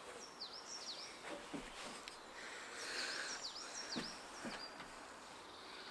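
Small birds chirping outdoors: short, high chirps that drop in pitch, coming in two groups, over faint outdoor background noise.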